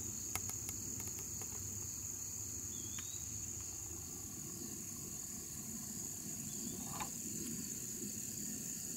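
Steady high-pitched drone of crickets in a grassy field, with a few faint clicks scattered through it.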